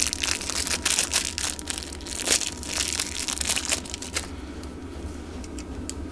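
Dense crinkling and rustling of nitrile-gloved hands handling a small swingarm bearing seal, stopping about four seconds in. A few faint clicks follow.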